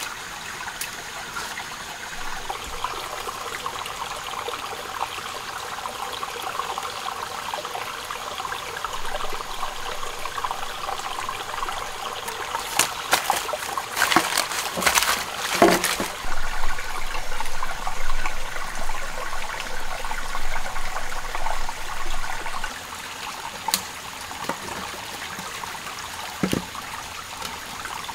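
Small forest stream trickling steadily over rocks. About halfway through comes a cluster of sharp knocks and clatter, then several seconds of louder, uneven water sound before the trickle settles back.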